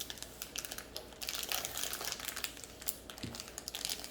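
Plastic toy packaging crinkling as it is handled and pulled open, an irregular run of small crackles.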